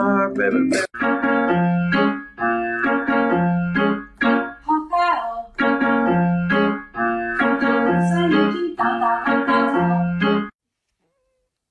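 Background music: a keyboard melody of short notes over a bass line, repeating the same phrase several times, that cuts off suddenly near the end.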